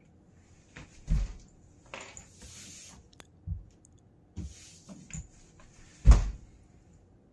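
Full-length prostration on a hardwood floor: knees, hands and body thudding onto the wooden boards and hands and clothing sliding across them as the body stretches out flat, then more thuds as he pushes back up. The loudest thud comes about six seconds in.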